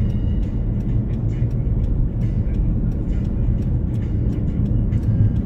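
Steady low road and engine rumble heard inside the cabin of a car cruising down a city road.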